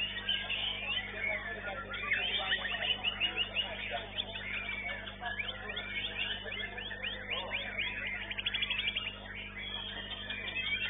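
White-rumped shama (murai batu) singing: fast, varied whistled phrases one after another, with a quick rapid-fire trill about eight seconds in. It is heard through a CCTV microphone that cuts off the high notes, over a steady electrical hum.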